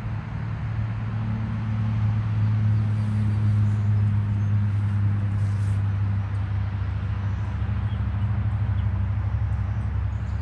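A vehicle running: a steady low engine hum with road or wind noise, growing a little louder about two seconds in.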